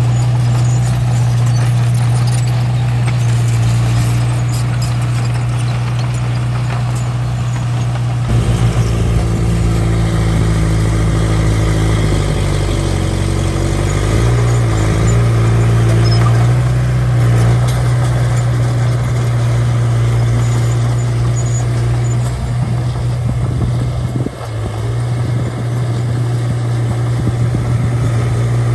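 Mini bulldozer's diesel engine running steadily while working soil. About eight seconds in the engine note deepens with more rumble, and a little later its pitch briefly dips and recovers as it takes load.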